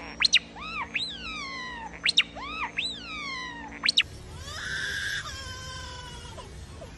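Bird calls: short, sharp upward whistles, each followed by an arched, falling whistle, repeated in about three rounds. About four seconds in, the sound changes to a held, wailing call that drops away.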